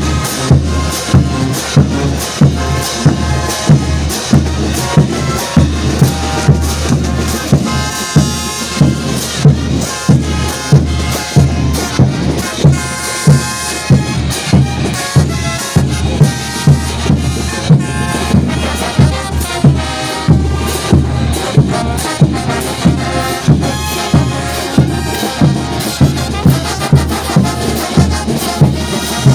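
Bolivian brass band playing parade music: trumpets and trombones over a steady, evenly spaced drum beat.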